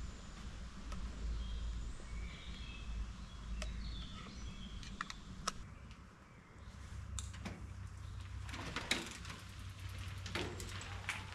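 Scattered sharp clicks and knocks, several close together in the second half, over faint short bird chirps in the first few seconds.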